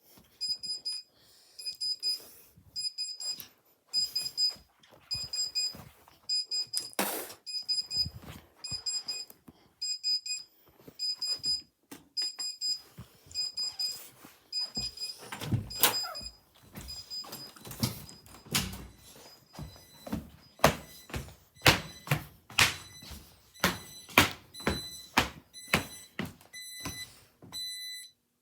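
Electronic alarm beeping at a high pitch in a steady repeating pattern, mixed with many sharp knocks and thuds that become louder and more frequent in the second half. Near the end the beep changes to a lower-pitched tone.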